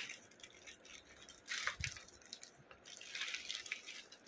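Thin clear plastic bag crinkling and rustling as hands pull it open and draw a toy out, with a soft knock near the middle.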